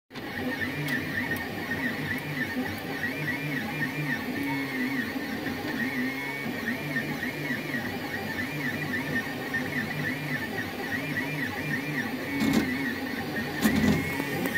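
XYZprinting DaVinci Duo 3D printer's X-axis stepper motor making a harsh, whining buzz that rises and falls over and over as it drives the print head. The motor is getting only partial signals through failed motor wiring. A couple of sharper knocks come near the end.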